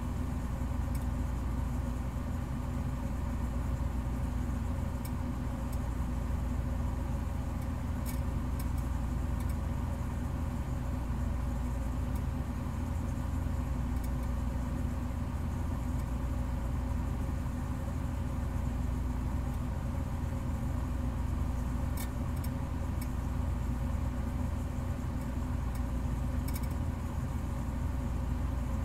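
A steady low mechanical hum, like a running motor or engine, with a few faint clicks scattered through it.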